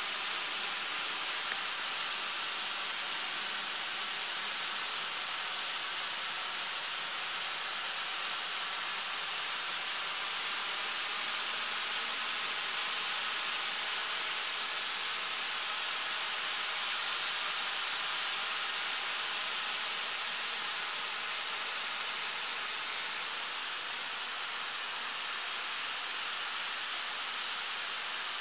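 Lance-type snowmaking guns spraying water and compressed air into the cold air, a steady unbroken hiss.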